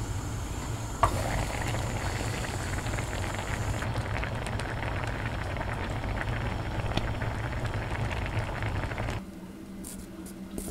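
Tantan dumpling hotpot boiling in a clay donabe pot, a steady bubbling crackle over a low rumble, with a sharp click about a second in. Near the end the bubbling cuts off, leaving a quieter stretch with a few light clicks.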